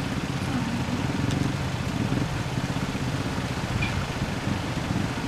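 A stationary van's engine idling steadily at close range.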